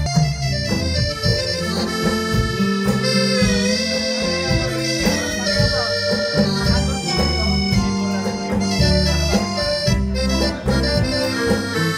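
Live band playing an instrumental break: a keyboard holding a sustained, reedy melody over electric guitar and a moving bass line, with no singing.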